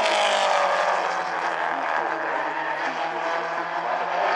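Mini stock race cars' four-cylinder engines running as the field circles the oval, several engine notes overlapping, one falling in pitch as a car goes by about half a second in.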